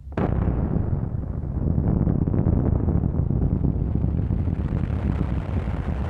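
An explosion's blast: a sudden crack a fraction of a second in, then a loud, steady low rumble.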